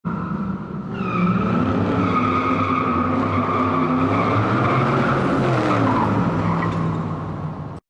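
A car engine revving up and back down while tyres squeal with a steady high-pitched screech, cutting off abruptly near the end.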